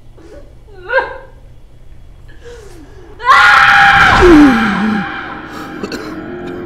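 A woman gasps and sobs in short breaths, then lets out a loud anguished scream about three seconds in, lasting nearly two seconds and sliding down in pitch into a wail as it fades.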